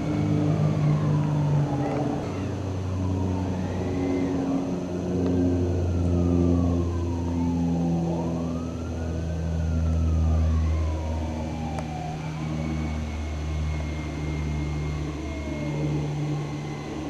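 Emergency vehicle sirens wailing, with slow falling and rising sweeps repeating every few seconds, and a second steady siren tone over the latter half. A low steady engine drone runs underneath.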